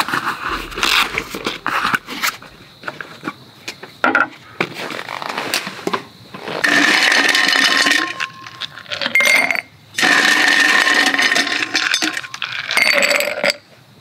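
Ice cubes clattering and tinkling as they are tipped into a tall glass, in two long runs and a shorter third, after a few seconds of rustling and handling of a soft bag.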